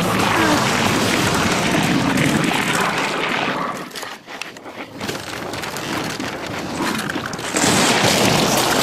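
Cartoon sound effects: loud, dense rushing noise that drops off briefly about four seconds in and swells again near the end.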